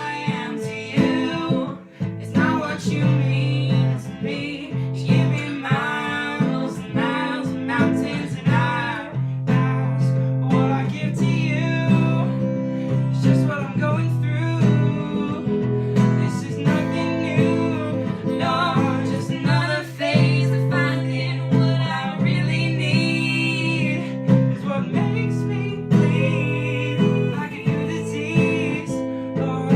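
Acoustic guitar strummed steadily under a sung vocal line.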